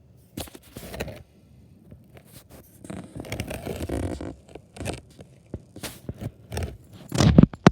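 Irregular scraping and rustling noises, with a longer rustle a few seconds in and a run of short knocks ending in the loudest burst near the end.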